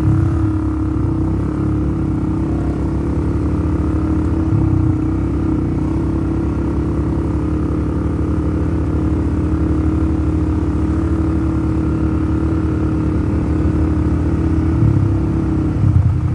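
All-terrain vehicle's engine running steadily while riding, with a continuous low rumble.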